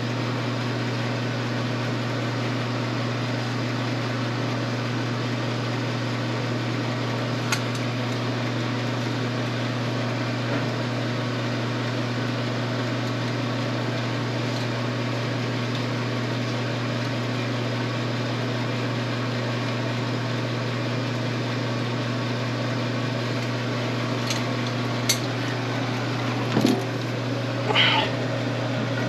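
A steady low mechanical hum, like a fan or motor running, with a few brief clicks and knocks near the end.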